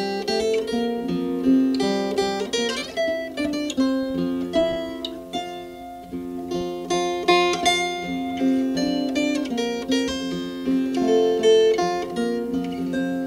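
Background music: a tune of quick plucked string notes.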